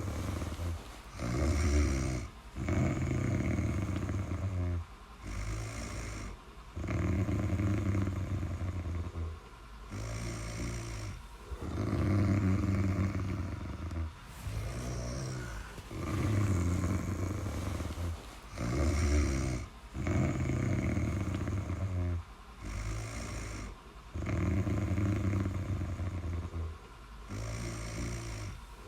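Snoring in a steady rhythm: a snore with each breath every two seconds or so, short gaps between, some snores stronger than others.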